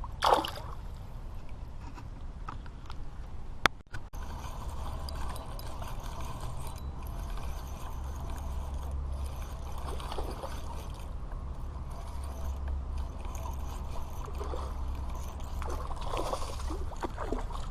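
Fishing reel being cranked as line is retrieved, with one sharp click about four seconds in.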